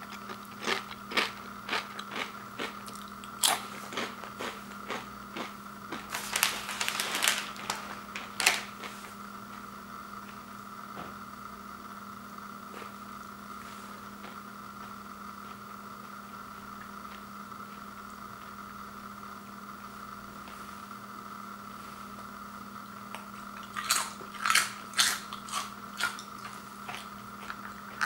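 Someone chewing kettle-cooked potato chips: a run of sharp crunches over the first several seconds, a long pause with only a faint steady hum, then another burst of crunching near the end.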